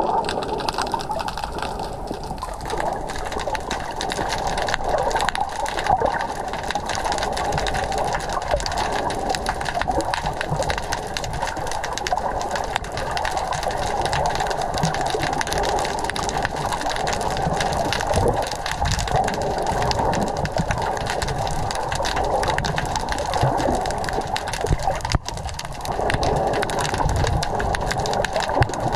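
Underwater sound picked up through an action camera's waterproof housing: a steady, muffled wash of water noise with a dense crackle of small clicks.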